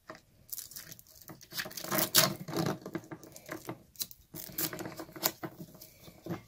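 Velcro strap being wrapped around and pressed onto a portable grill's handles: short tearing sounds and scattered handling clicks, the loudest about two seconds in.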